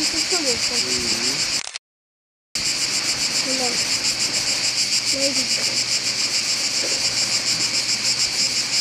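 Loud chorus of cicadas in the pines: a steady, shrill, pulsing buzz that cuts out completely for under a second about two seconds in.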